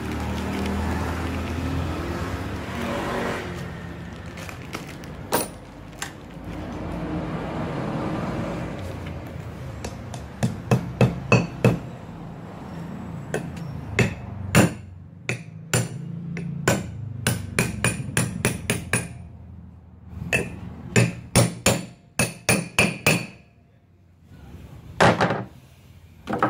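Hammer blows on a metal tool held inside the rear brake drum of a Kia Bongo 3 truck, metal on metal, in quick runs of several strikes starting about ten seconds in, with the drum ringing briefly after each. Before the hammering, a steady mechanical rumble.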